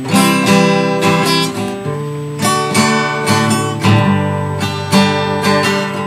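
Acoustic guitar strummed in a steady rhythm, playing a chord introduction with the chords changing about every second or two.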